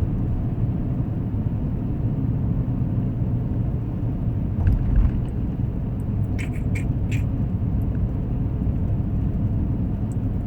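In-cabin road and drivetrain rumble from a 2010 Acura MDX driving on a snowy, icy road. The rumble is steady and low, with one heavier thump about five seconds in and a few short clicks just after it.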